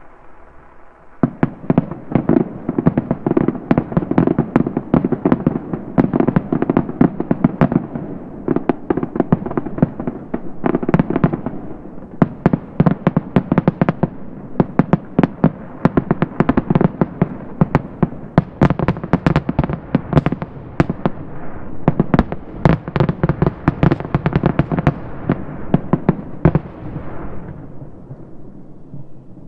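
Distant aerial fireworks: a rapid, continuous barrage of shell bursts, many bangs a second, starting about a second in and dying away near the end into a low rumble.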